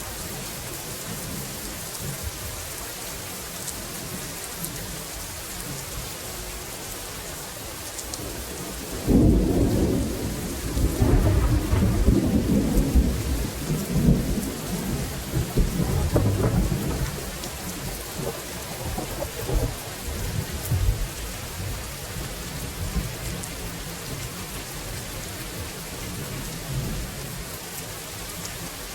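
Steady rainfall with a peal of thunder breaking suddenly about nine seconds in, rolling through several swells for around ten seconds before dying back under the rain.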